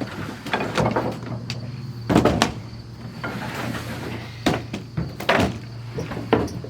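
Irregular knocks and clunks of objects being handled and shifted, the loudest about two seconds in and again around five seconds, over a steady low hum.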